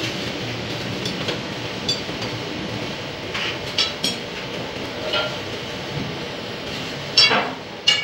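A powered plate-rolling machine runs with a steady rumble as its rollers bend a steel sheet into a drum shell, with scattered light metallic clinks from the sheet on the rollers. Two louder metal clangs come near the end.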